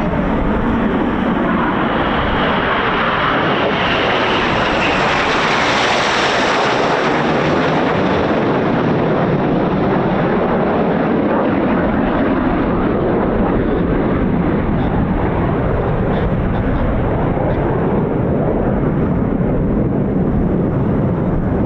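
Red Arrows BAE Hawk T1 jets passing overhead. Their jet noise swells to its loudest and highest about six seconds in, then settles into a steady, fading rumble. Gusting wind buffets the microphone.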